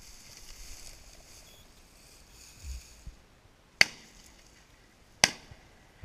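Two shotgun shots, about a second and a half apart, fired at a flushed game bird.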